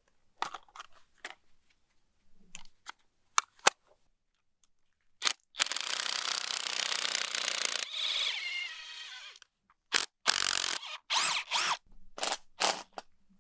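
Sharp clicks and knocks, then a handheld power tool runs for about four seconds and winds down, followed by several short bursts of the same tool or further knocks, while the slab's formwork is being taken apart.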